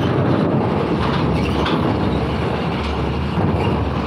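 Box truck driving up the steel loading ramp into a roll-on/roll-off ferry. Its diesel engine runs under load and its tyres rumble over the steel grating and ramp plates.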